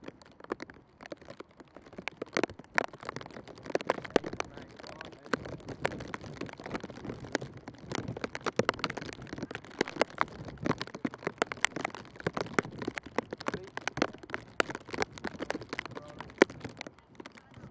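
Footsteps of a group of footballers jogging on grass during a warm-up, an irregular patter of taps with faint voices underneath.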